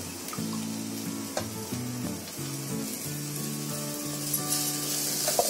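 Ground tomato chutney sizzling in a pan of hot mustard-seed and curry-leaf tempering as it is stirred, a steady frying hiss with a few light clicks of the spoon.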